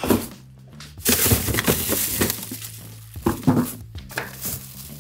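Plastic bags rustling and hard containers clinking and knocking against refrigerator shelves as food is taken out of a fridge. A sharp knock comes at the start, a longer burst of rustling and clatter about a second in, and a few more knocks after the middle.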